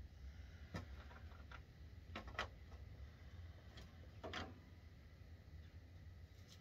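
A handful of faint clicks and light knocks from hands working in a car's open engine bay, over a low steady rumble.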